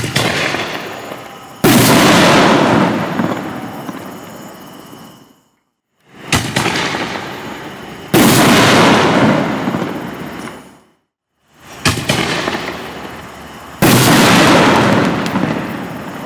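Three 5-inch canister firework shells fired one after another. Each launch thump is followed about two seconds later by a louder aerial burst that dies away over several seconds.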